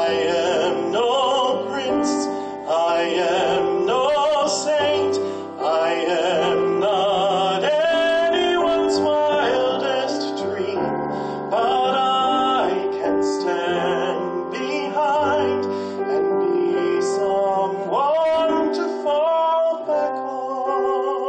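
Piano accompaniment to a ballad, with a male singer holding long notes with vibrato.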